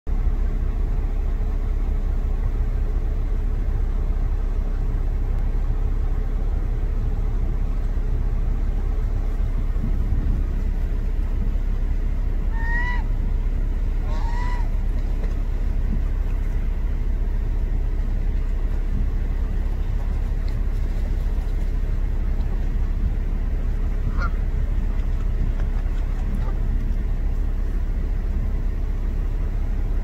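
Two Canada goose honks about a second and a half apart near the middle, and a fainter call later, over a steady low rumble.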